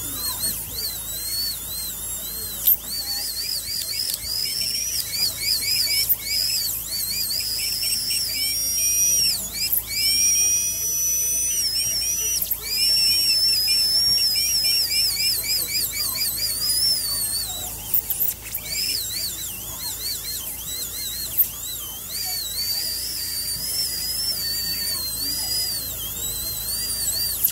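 High-speed dental handpiece whining as its bur cuts away the bone over a dog's upper canine, to free the fractured tooth for extraction. The pitch dips and recovers again and again as the bur is pressed in and eased off.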